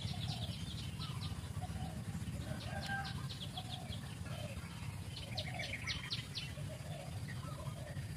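Birds calling in the background: three quick series of rapid high chirps a couple of seconds apart, with softer, lower calls scattered in between, over a steady low rumble.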